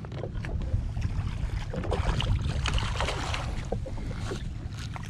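Water splashing and slapping as a hooked fish is reeled up to the surface beside a jet ski. Low wind rumble on the microphone runs underneath, and the splashing is busiest around the middle.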